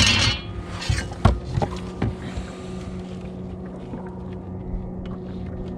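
A boat motor runs with a steady hum. A few sharp knocks come in the first two seconds.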